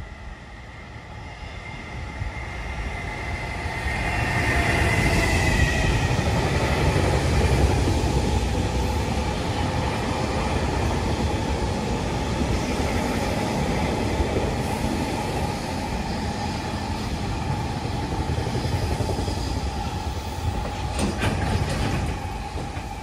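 JR Freight EF210 electric locomotive hauling a long container freight train past at speed. A high tone from the locomotive falls in pitch as it goes by, then the wagons rumble and clatter past steadily, with a few sharp wheel clicks near the end as the last wagons pass and the sound fades.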